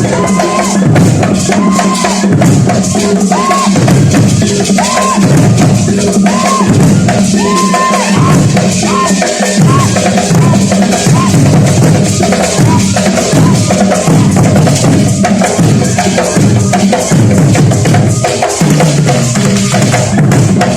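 Ensemble of big drums playing a continuous, loud driving rhythm, with short arched high tones sounding over the drumming.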